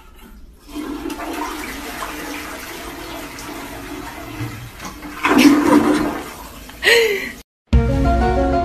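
Toilet flushing: water rushing and swirling into the bowl, swelling louder about five seconds in, with a short louder burst just before it stops. After a moment's silence, background music comes in near the end.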